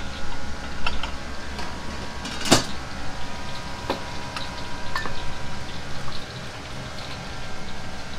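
Kitchen work sounds over a steady hum of kitchen equipment: scattered clinks and knocks of utensils, ceramic and steel bowls being handled. The sharpest clink comes about two and a half seconds in.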